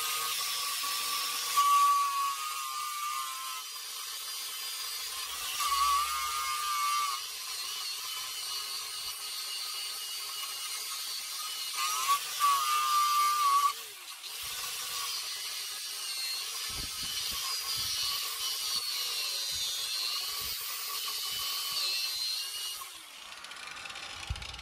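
Parkside PWS 125 E4 angle grinder running a wire brush over a rusty, painted steel bar: a steady high whine with harsh scratching, louder in a few short passes, stripping off rust and paint. The grinder cuts off near the end.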